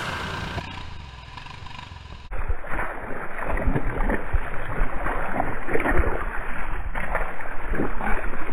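Boots splashing and squelching through a shallow muddy puddle in uneven steps, starting suddenly about two seconds in after music fades out.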